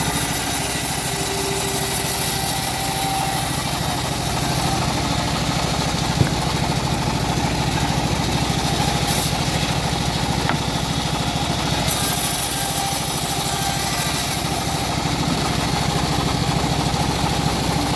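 Engine of a homemade bandsaw mill running steadily at a constant speed, with one sharp knock about six seconds in.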